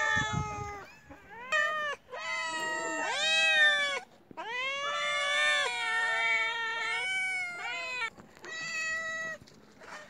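Several domestic cats meowing over and over: about four bouts of long, drawn-out meows, more than one cat calling at once in places. They are cats gathered and calling to be fed.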